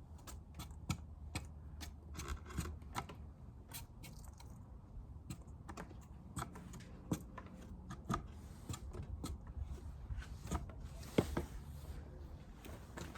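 Irregular light clicks and taps, a few a second, as hive parts are handled and dead bees are gathered up.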